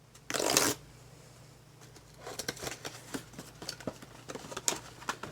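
A toy fashion pack being opened by hand: a short tearing or ripping sound about half a second in, then rustling of packaging with light clicks and taps.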